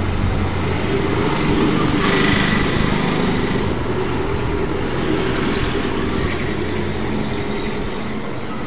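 A motor running steadily, a low hum under a broad hiss, swelling slightly about two seconds in.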